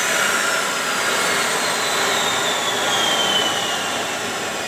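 Holset turbocharger's compressor wheel spinning down, its high whine falling steadily in pitch over a rushing noise. It coasts down gradually rather than stopping abruptly, which is what a turbo with free-turning shaft bearings should do.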